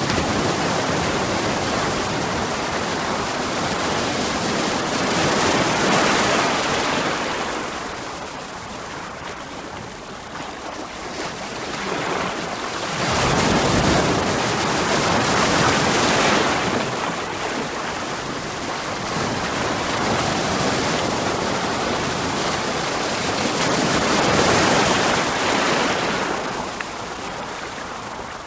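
Ocean waves breaking against rocks: a continuous rushing wash of surf that swells and falls back, surging three times.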